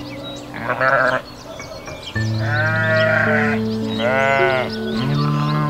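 Sheep bleating four times, the second bleat the longest, over calm background music.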